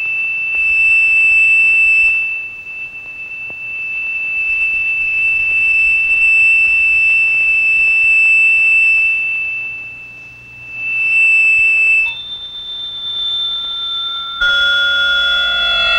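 Film score: one high, piercing tone held for about twelve seconds, swelling and fading once near ten seconds. It then steps up to a higher pitch, and near the end several held tones join it in a tense chord.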